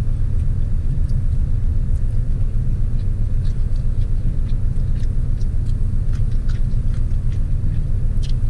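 Idling car engine heard from inside the closed cabin: a loud, steady low rumble with a quick, even pulse. A few faint clicks from eating come through over it.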